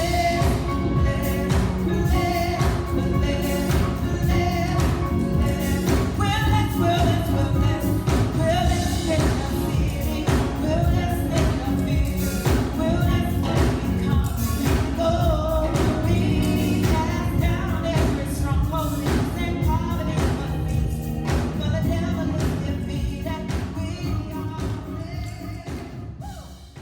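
Gospel music: singing over band accompaniment with a steady drum beat, fading out near the end.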